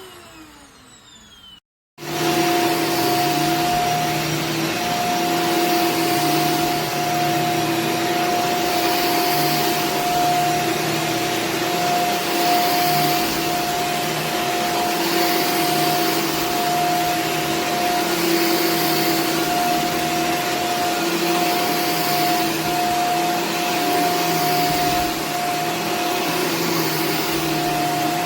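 Shark Stratos upright vacuum's motor winding down with a falling whine. After a brief gap about two seconds in, the vacuum is running again with a loud, steady whine over a rush of airflow.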